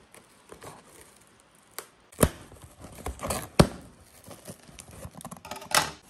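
Scissors cutting packing tape on a cardboard box, with the tape and cardboard flaps being torn and pulled open. There are a few sharp snaps, the loudest about two seconds in and again a second and a half later, with rustling in between.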